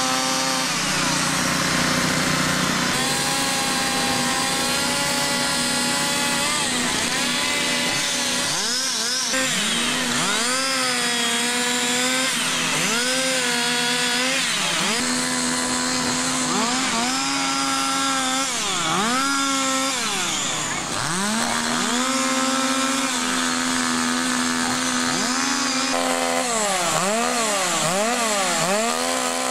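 Petrol chainsaws carving wood, the engine pitch sagging each time the chain bites and climbing again as it is eased off, over and over. Near the end two saws run together.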